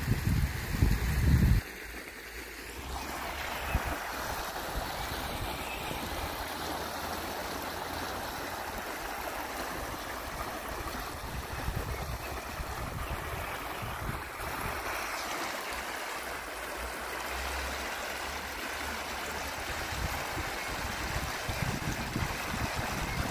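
River water rushing over a shallow rocky riffle: a steady, even rush. A low rumble in the first second and a half.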